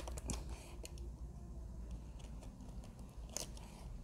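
Snap-off utility knife slitting the clear plastic wrap around a cardboard box: faint scratching with scattered small clicks, and a louder cluster of crackling clicks a little after three seconds in.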